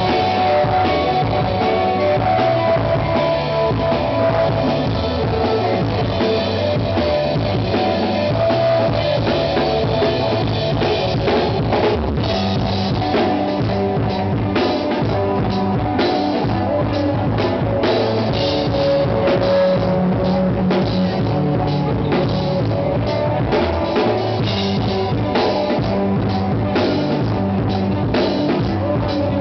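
Live rock band playing, with a drum kit keeping a steady beat under electric guitars. The drum hits come through more sharply from about halfway through.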